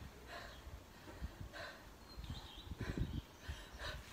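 A kettlebell sport athlete's hard breathing, a short forceful breath about once a second, while she holds two kettlebells in the rack position between lifts.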